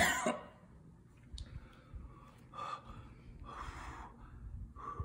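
A man breathing hard through his mouth against the burn of an extremely hot chili chip, with a few noisy breaths about a second apart. The end of a loud cough is heard right at the start.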